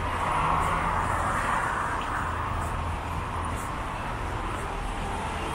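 Traffic on a wet city road: a steady hiss of tyres on wet asphalt and engine rumble from passing vehicles, swelling in the first couple of seconds.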